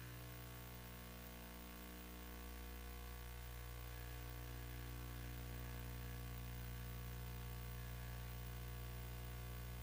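Faint steady electrical hum with hiss, with no speech or music.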